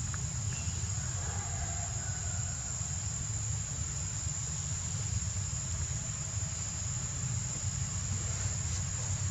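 Steady high-pitched drone of insects in the trees, unbroken throughout, over a constant low rumble.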